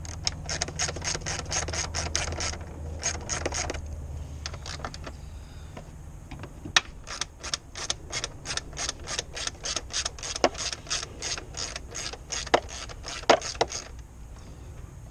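Socket ratchet clicking in quick runs of about five clicks a second, with short pauses, as a bolt is worked loose.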